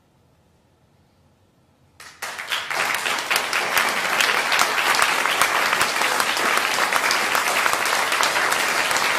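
Concert audience breaking into applause about two seconds in, after a brief hush, and quickly building to steady, dense clapping.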